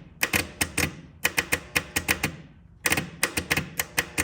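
Turbo diesel generator's starter solenoid chattering: rapid sharp clicks, about five a second, in runs with short pauses, instead of the engine cranking, with power fed straight to the starter cable. Rapid clicking like this is typical of low battery voltage.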